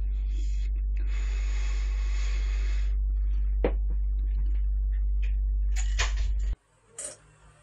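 Steady, loud low electrical hum with evenly spaced overtones that cuts off suddenly near the end. A hiss runs for about two seconds from about a second in, and a few sharp knocks come through over it.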